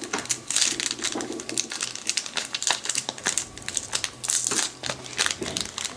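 Foil wrapper of a Yu-Gi-Oh Metal Raiders booster pack crinkling as it is handled and opened by hand: a dense run of small crackles.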